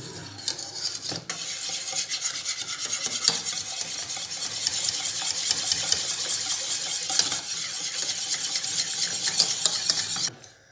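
Wire whisk beating thick béchamel sauce in a metal saucepan: a fast, continuous scraping of the wires against the pan. It stops suddenly near the end.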